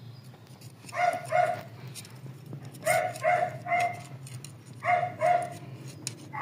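A dog barking in three short bursts of two or three barks each, seven barks in all, over a low steady hum.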